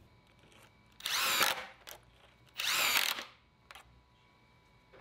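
Power drill-driver whirring in two short runs as it drives wood screws through the holes of a closed Soss 518 invisible hinge into a wooden door edge.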